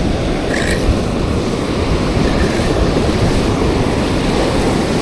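Wind rumbling steadily on the microphone over breaking surf.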